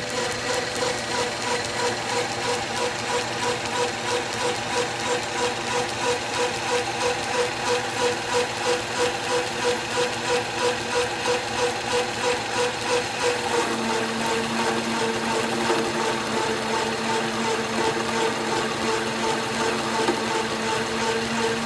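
South Bend metal lathe running, its drive and gears making a steady whine that pulses about three times a second. About 14 seconds in the pitch drops slightly and the sound becomes even.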